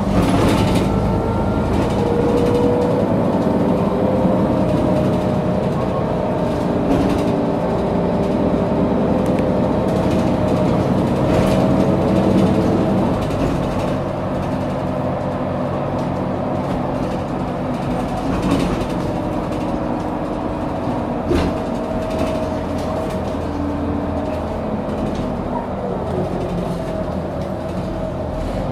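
Mercedes-Benz O530G Citaro articulated bus heard from inside on the move: a steady diesel engine drone whose pitch shifts as it pulls, easing off and getting quieter about halfway through. A few short knocks or rattles come through now and then.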